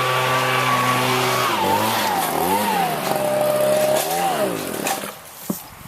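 An engine running at a steady pitch, then revving up and down a few times before fading away.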